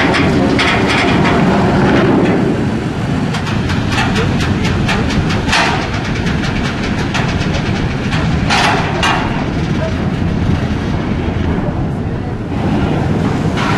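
Metal clanking and knocking from a ro-ro ferry's steel stern loading ramp just lowered onto the quay, over a steady low rumble. The knocks come in a quick run and then a few louder ones.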